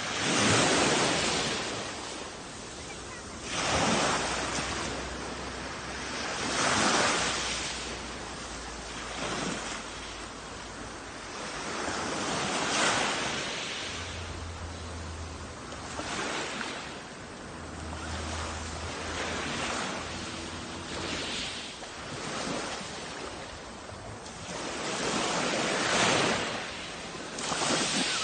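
Sea waves breaking on a shore, the surf rising and falling in repeated surges a few seconds apart, with wind in the background.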